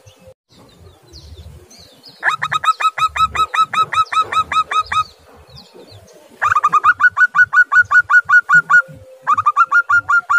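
Zebra dove calling: three runs of rapid, evenly repeated short staccato notes, about six a second, the first starting about two seconds in, the second past halfway, and a short third near the end.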